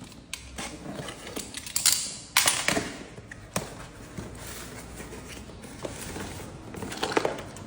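Plastic packaging crinkling and rustling as a parts box is rummaged through by hand, with small handling clicks and two louder crackling bursts about two to three seconds in.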